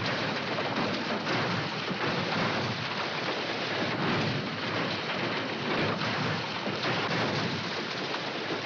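A car tumbling and sliding down a steep dirt slope: a continuous crashing rumble of metal, rocks and earth, with many short knocks in it.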